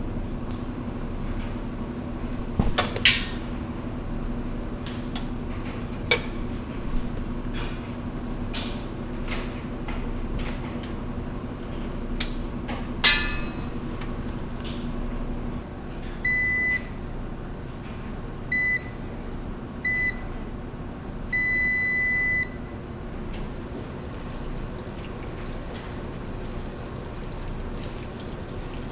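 Washing machines running: a steady hum with scattered clicks and knocks. About halfway the hum stops and a machine's control panel beeps four times, the last beep held longer.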